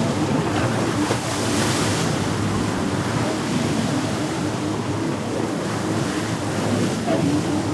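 Jet ski engine running steadily on the water, mixed with the splash and wash of waves, with a brief brighter swish of spray about a second and a half in.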